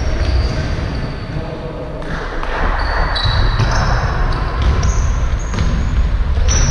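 Basketball game play on an indoor court: sneakers squeaking on the floor again and again, a basketball bouncing, and players' running footsteps.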